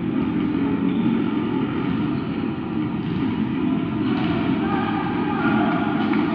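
Steady hum of a large sports hall's room noise, with faint distant voices of players calling on court from about four seconds in.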